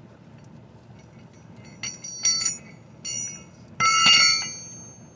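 Steel hand tools clinking together as they are handled: four metallic knocks, each ringing briefly, the last and loudest about four seconds in.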